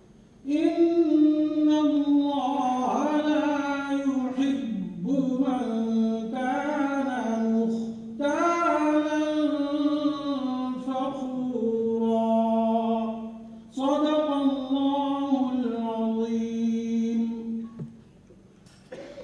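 A single voice chanting unaccompanied in four long melodic phrases, each sliding through ornamented turns and ending on a long held note.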